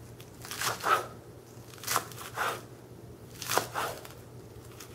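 Knife slicing crisp iceberg lettuce into thin strips on a plastic cutting board: about five separate crunchy cuts at an uneven, unhurried pace.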